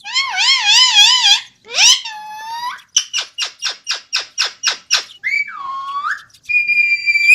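Ringneck parakeet calling and whistling. It starts with a wavering warble and a quick rising whistle, then gives a rapid run of about a dozen short chirps, a swooping call, and a steady high whistle near the end.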